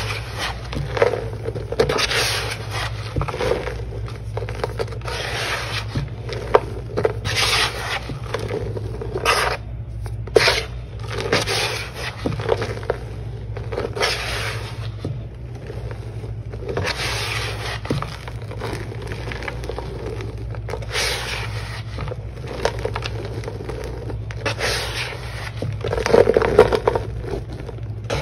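A hand sweeps and rakes through dry blue cleaning powder in a plastic tub, with fingers scraping powder across the tub's bottom. The gritty swishes repeat about once every second or two.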